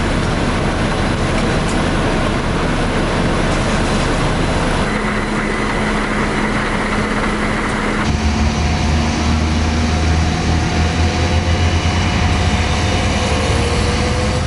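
Fire engines' diesel engines running steadily to drive their water pumps: a low engine drone under a broad rushing hiss. The sound shifts abruptly about five and again about eight seconds in.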